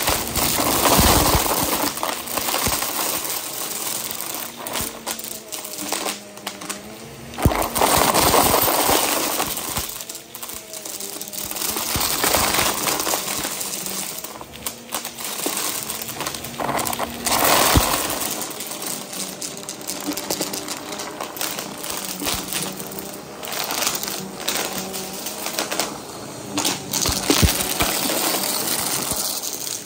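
Bissell OnePass upright vacuum running on carpet, sucking up hard debris such as wooden letter tiles, beads and buttons, which rattle and click through the nozzle over the steady motor hum. There are several louder rushes of suction as it is pushed into the pile.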